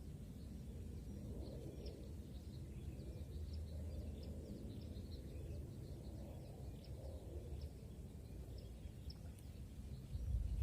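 Rice-field ambience: a steady low rumble with faint, scattered high chirps of small birds, and a louder low thump near the end.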